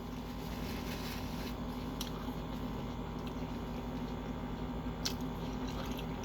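A person chewing a mouthful of sub sandwich, with a few small wet clicks of the mouth, over a steady low hum.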